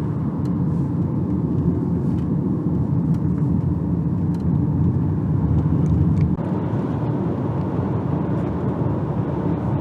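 Steady rumble of a car travelling at road speed: engine and tyre noise.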